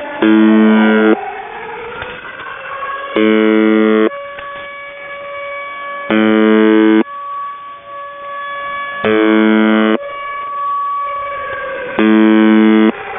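UVB-76 'The Buzzer' shortwave channel marker heard through a radio receiver: a harsh one-second buzz five times, about every three seconds. Between the buzzes a pirate jammer's air-raid siren wails, gliding up and down in pitch.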